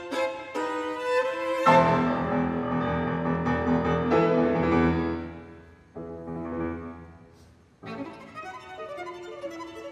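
Violin and grand piano playing classical music. The violin plays short separate notes, then about 1.7 s in the piano comes in with loud, deep chords that ring and die away while the violin rests. About 8 s in the violin takes up the melody again.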